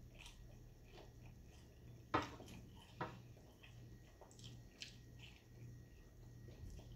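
Eating hard-shell tacos: chewing, with sharp crunches of the shell about two and three seconds in, over a faint steady hum.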